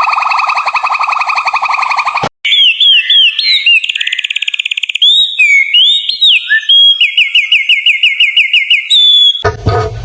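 A rapidly pulsing animal call cuts off after about two seconds. Then comes a run of alarm-like whistles: fast trills, rising and falling sweeps and rows of repeated chirps, changing pattern every second or so, like a car alarm cycling through its tones. Music starts near the end.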